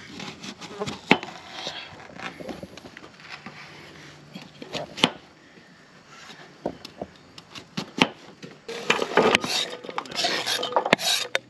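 Cooking utensils clinking and scraping against cookware, with a few separate sharp knocks and a busier stretch of scraping near the end.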